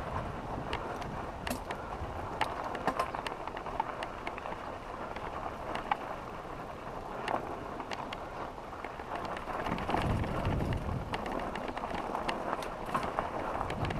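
Mountain bike rolling over a gravelly dirt trail, heard from a camera on the rider: steady tyre noise with frequent sharp clicks and rattles. Wind rumbles on the microphone, stronger from about ten seconds in.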